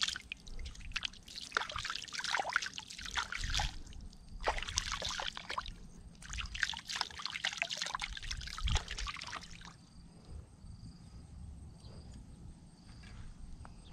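Hands scooping and splashing in shallow river water, with water trickling and dripping back in bursts. About ten seconds in the splashing stops and an insect chirps at a steady pulse.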